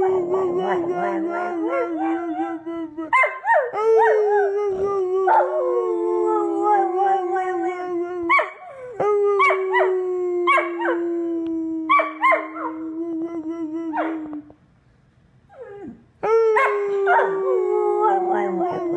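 A dog howling in long drawn-out howls, each starting a little higher and sliding slowly down in pitch, with short sharp yips and clicks over them. There are four howls, the last starting after a brief quiet gap near the end.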